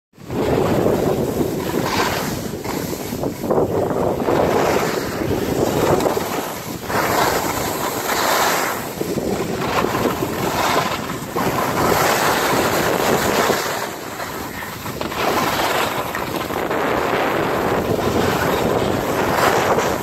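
Wind rushing over the microphone of a skier moving downhill, mixed with the hiss of skis scraping packed, groomed snow. It swells and fades every couple of seconds.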